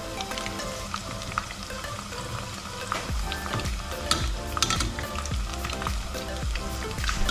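Pakoras deep-frying in hot oil, a steady sizzle and crackle, while a slotted metal spoon stirs and turns them in the pot with scattered scrapes and taps.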